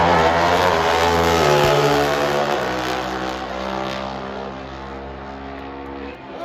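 Two NHRA Pro Stock drag motorcycles, a V-twin and a Suzuki four-cylinder, running at full throttle down the strip. The engine note steps with gear changes and fades as the bikes pull away.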